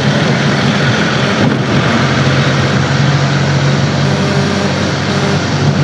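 Vehicle running along a highway, heard from inside it: a steady low engine drone under an even rush of road noise.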